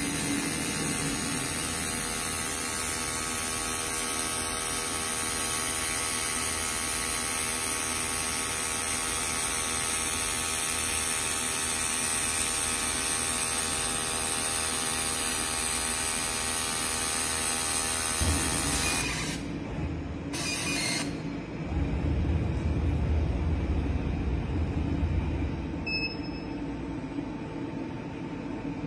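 Laser frosting machine running while it etches a mirror's edge: a steady many-toned hum with a high hiss. It shuts off about two-thirds of the way through, leaving a lower rumble.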